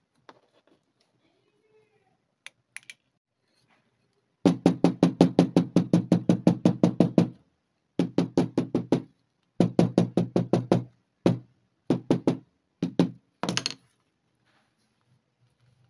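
Small hammer tapping rapidly along the stitched seam of a leather wallet, in quick runs of about eight taps a second with short pauses between runs, starting about four seconds in. Faint handling of the leather comes before the tapping.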